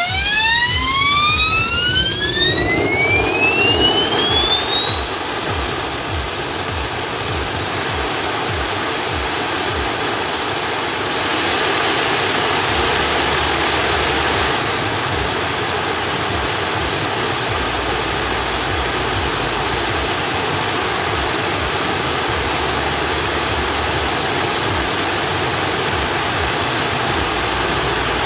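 Small kerosene gas turbine of a jet go-kart, freshly rebuilt with its turbine wheel shimmed for clearance, spooling up on start with a rising whine over the first several seconds. It then runs steadily with a high whine over the rush of its exhaust. The whine rises briefly for a few seconds around the middle, then settles.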